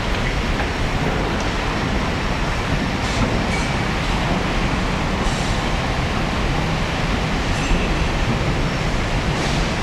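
Steady low roar of city traffic noise, with faint short hisses every couple of seconds.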